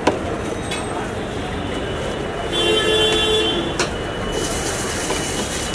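Steady street traffic noise, with a vehicle horn sounding one held note for about a second midway. A high hiss follows near the end.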